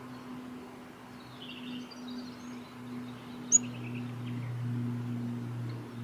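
Rufous fantail's high, thin chirping calls: a short run about a second in, then one sharp, loud chip near the middle followed by a few more chirps. Underneath is a steady low hum that grows louder in the second half.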